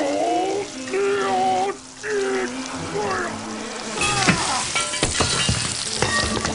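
Water hissing and spraying from a leaky faucet under repair, with a gliding tune over it for the first few seconds. About four seconds in the spray gets louder and is joined by a run of sharp clattering knocks.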